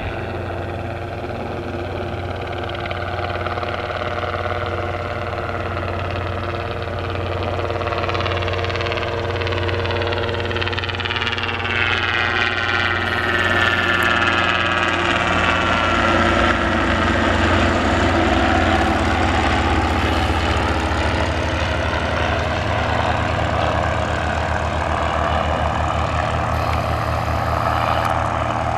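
Robinson R22 Beta helicopter flying past close by: its four-cylinder Lycoming piston engine and two-blade rotor make a steady, beating drone. It grows louder to a peak about halfway through, the pitch sliding down as it goes past, then eases a little as it flies away.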